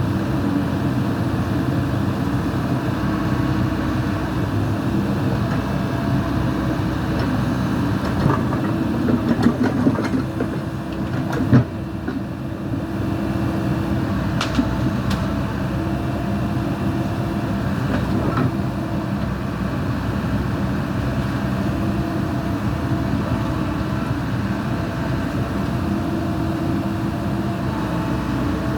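Backhoe's diesel engine running steadily, with a cluster of sharp metal clanks from the machine and its hydraulics about a third of the way in, the loudest near the middle, and a couple of lighter knocks after.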